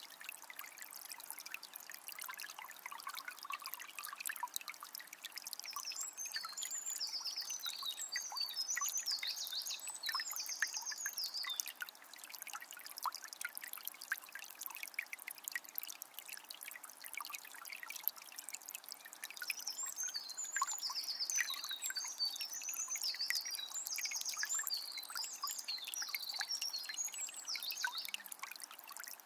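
Calm forest river trickling and splashing, with many small drips. A songbird sings two long runs of quick, high warbling notes, the first about five seconds in and the second about twenty seconds in.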